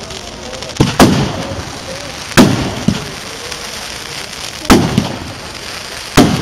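Aerial firework shells bursting at a display: a series of sharp bangs, one every one to two seconds, the first a quick double, each trailing off in an echo.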